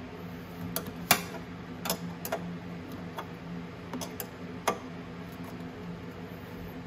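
Irregular sharp metallic clicks and taps, about eight of them, the loudest about a second in, from a hand wrench working the 10 mm nuts that hold a motorcycle's voltage rectifier. A steady low hum runs underneath.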